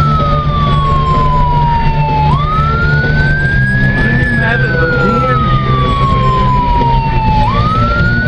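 Toy police car siren wailing: each cycle jumps quickly up in pitch and then slides slowly down for about three seconds, repeating about every five seconds. A steady low drone from the moving pickup's cab runs underneath.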